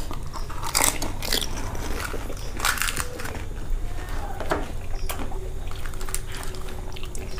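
Crisp fuchka (panipuri) shells cracking and crunching as they are broken open and eaten, with chewing in between; several short, irregular crunches.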